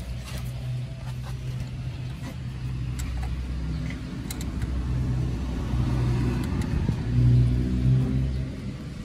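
The Dodge D300's engine turning over on its starter, cranking without firing because the ignition is giving no spark. It gets louder towards a peak late on, then eases off near the end.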